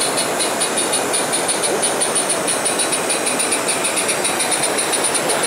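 Model narrow-gauge saddle-tank steam locomotive chuffing steadily as it hauls its train, about six beats a second.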